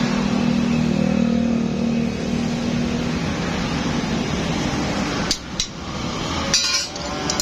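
Road traffic passing: a vehicle engine hum that fades away over the first few seconds, over a steady traffic wash. Near the end come a few sharp metallic clicks and knocks.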